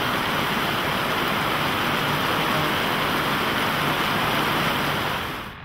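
Heavy rain pouring down, a steady even hiss that cuts off suddenly near the end.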